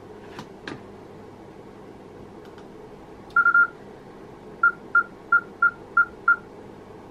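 Two light clicks, then a Kenwood TS-990 transceiver beeping as a macro's string of CAT commands switches it from CW to upper sideband and resets its filter, AGC and equalisers: a quick burst of three short beeps a few seconds in, then six short beeps about three a second.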